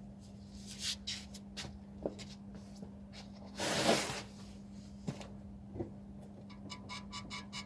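Short squeaks and creaks from the rear suspension of a BMW E91 estate, an unidentified squeak, with one longer creaking rasp about four seconds in as the loudest sound, over a steady low hum. A fast ticking starts near the end.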